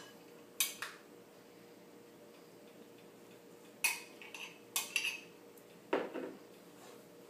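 A metal spoon clinking and scraping against a glass measuring cup while ice cream is scooped out into a plastic bowl: two sharp clinks near the start, a cluster of clinks around four to five seconds in, then a duller knock about six seconds in.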